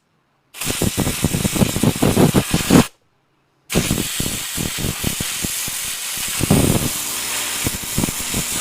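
Compressed-air blowgun blasting into a freshly tapped, brake-cleaned bolt hole in a steering spindle to clear out debris before a helicoil insert goes in: a hiss with rough fluttering, first for about two seconds, then after a short break again for about five seconds.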